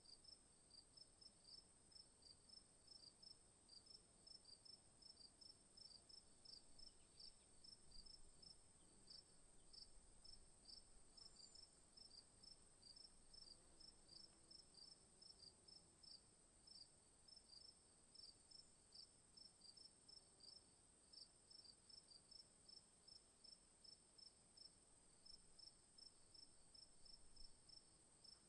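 Crickets chirping, faint: a steady high-pitched trill under a rapid train of short chirps, about two a second.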